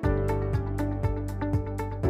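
Background music with a steady beat, about four strokes a second, over sustained bass and melody notes.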